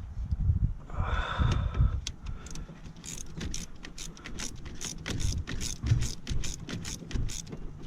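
Hand ratchet wrench clicking on a spark plug socket: a run of quick clicks, about four or five a second, through the second half, after some low knocks of tools against the engine.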